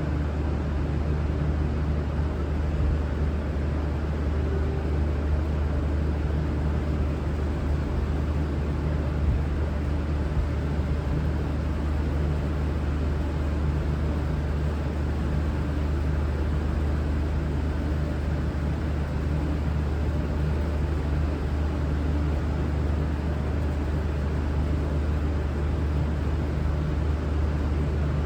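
V/Line VLocity diesel multiple unit idling at the platform, a steady low engine hum with no change in pitch or level.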